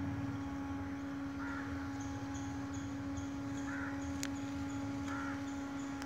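A single sharp click about four seconds in as a dried seed pod bursts open in puddle water, over a steady low hum. A bird calls four times in the background.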